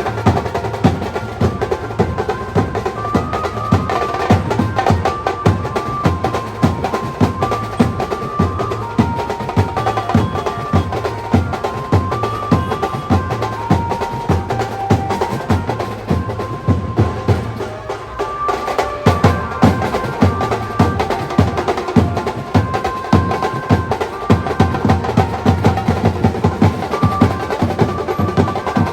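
Maharashtrian banjo party band playing: an electric Indian banjo carries a melody over fast, busy drumming. The drumming drops out for a moment about two-thirds of the way through, then picks up again.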